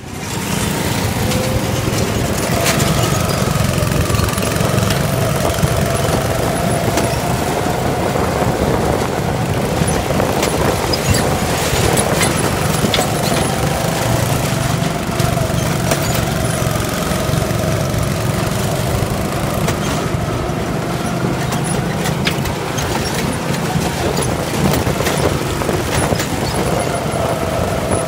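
Cessna 175's piston engine and propeller running steadily, with a few faint clicks over the drone.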